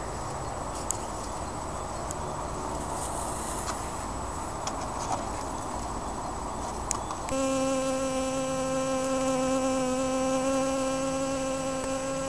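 Honeybees humming around an open hive, with a few faint clicks as the frames are handled. About seven seconds in this cuts to a single honeybee buzzing steadily in flight.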